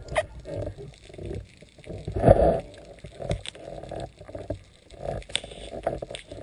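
Muffled underwater noise through a speargun-mounted camera housing: irregular swishes and scattered knocks as the gun is handled and the diver moves, with one louder surge about two seconds in.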